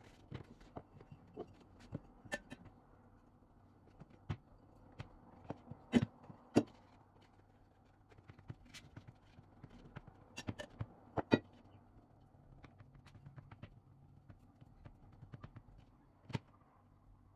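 Scattered taps and knocks of hands pressing and patting pastry dough flat on a plastic cutting board, at irregular intervals, the loudest about six seconds in and again near the eleven-second mark, over a faint steady hum.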